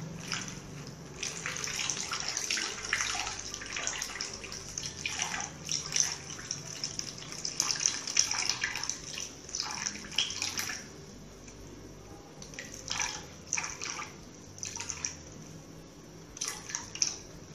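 Water poured from a steel tumbler into a plastic poly bag, splashing and trickling in uneven spurts with short pauses.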